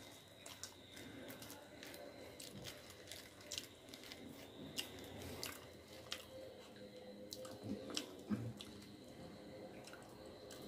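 A person chewing puri and fried potatoes close to the microphone, with irregular sharp mouth clicks and smacks.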